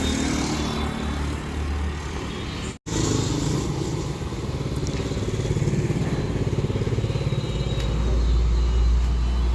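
Busy road traffic going past, mostly motorcycle engines running by. The sound drops out for an instant about three seconds in.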